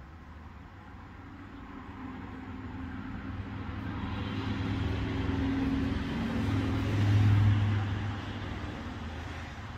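A motor vehicle passing by on a road: engine and tyre noise builds over several seconds, is loudest about seven seconds in, then fades away.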